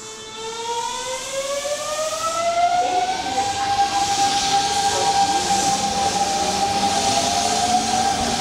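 Hanshin Mukogawa Line electric train's traction motors whining as it accelerates away. The tone rises in pitch over the first two or three seconds, then holds steady under growing running noise.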